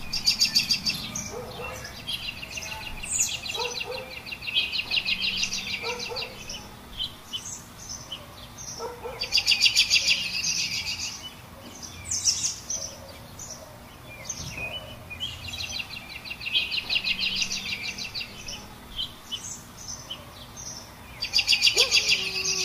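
Small songbirds chirping and singing, with bursts of rapid, even trills. The same stretch of birdsong comes round again about every eleven and a half seconds, like a looped recording.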